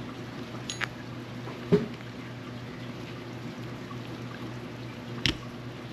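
A few light clicks and one louder knock of small metal parts and a screwdriver being handled while a Penn Battle II 3000 spinning reel is taken apart, over a steady low hum.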